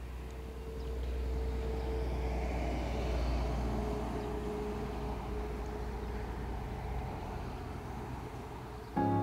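A motor vehicle passing at a distance: a hum with a faint held tone that swells over the first few seconds and slowly fades away. Piano music comes in at the very end.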